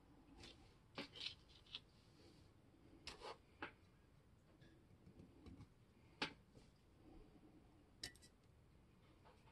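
Faint, scattered light clicks and taps of a small screwdriver and screws against the metal body of a cast-iron level as its fittings are reinstalled, about eight in all, the sharpest about six seconds in.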